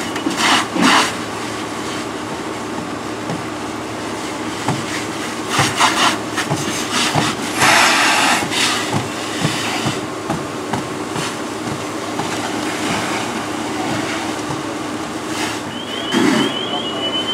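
Fire hose stream spraying onto a burning pickup truck: a steady rushing hiss with louder bursts of spray and steam, over a steady low engine drone. Near the end, a run of short, rising, high-pitched beeps.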